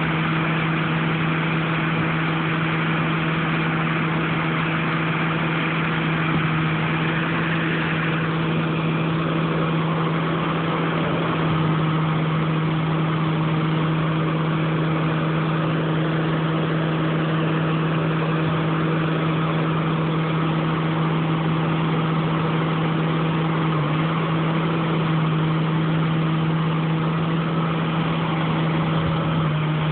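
Heavy diesel harvest machinery running steadily at a constant engine speed. A steady engine tone sits under a broad mechanical whir.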